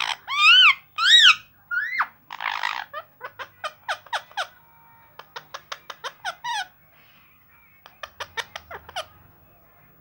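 Rose-ringed parakeets calling: two loud, rising-and-falling whistled squawks near the start and harsh screeches, then several quick runs of short, sharp chirps.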